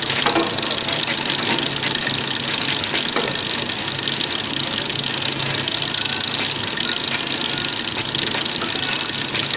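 Produce-sorting conveyor line running steadily: a constant mechanical hum with an even higher-pitched hiss over it.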